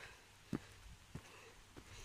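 Footsteps on a forest path: three soft thuds at a walking pace, about two every second.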